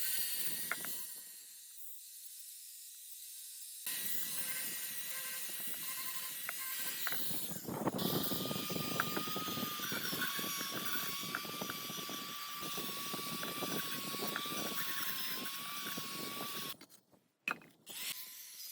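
A power tool working on metal: a dense, rapid crackle with a steady whine, running for several seconds and cutting off suddenly near the end, followed by a few sharp clicks.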